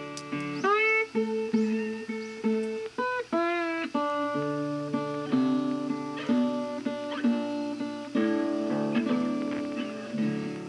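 Background music: an acoustic guitar melody with note bends and slides over held bass notes.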